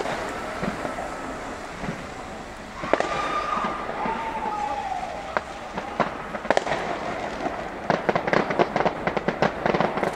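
Fireworks going off: a sharp bang at the start and another about three seconds in, then from about eight seconds a dense, rapid crackling of crackle-effect shells.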